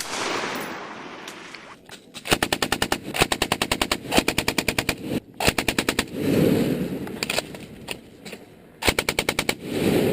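Belt-fed machine gun firing a series of short automatic bursts, about ten shots a second, each burst under a second long with a rolling echo after it.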